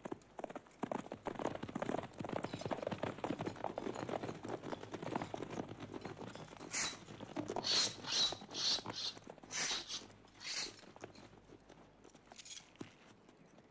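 Many hooves and marching feet moving over the ground in an irregular, dense patter of knocks and scuffs. About halfway in, a string of short hisses follows.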